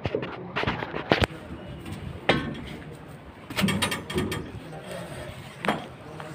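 Irregular sharp clicks and knocks with rustling: handling noise as the phone rubs and knocks against a plastic tarp.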